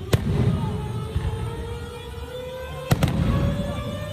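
Aerial fireworks going off: two sharp bangs, one just after the start and one about three seconds in, over a continuous low rumble of further bursts.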